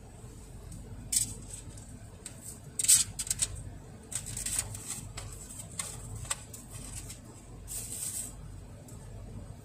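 Eating sounds: scattered short clicks and crinkles from chopsticks and a plastic food pack being handled, several in quick succession about three seconds in, over a low steady hum.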